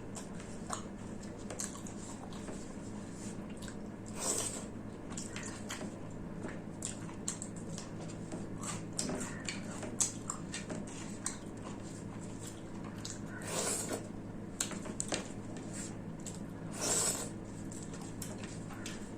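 Close-miked eating of rice and mutton curry: wet chewing and squishing with many small clicks, and three longer, louder swells, about four seconds in, past halfway and near the end.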